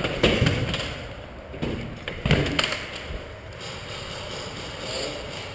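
Thuds and scuffing footsteps on a concrete floor strewn with rubble: a cluster of heavy knocks in the first three seconds, then quieter.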